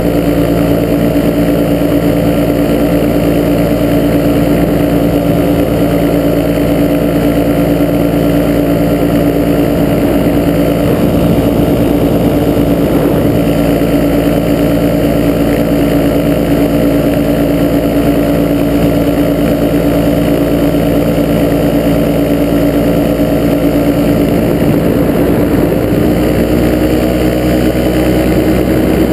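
Engine of an open-frame ultralight aircraft running steadily in cruise flight, a continuous drone with propeller and wind noise; its pitch shifts slightly near the end.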